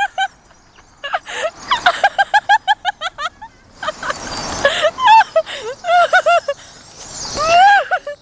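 A flock of birds calling: many short, harsh, pitched calls, some in quick runs of several a second, overlapping one another.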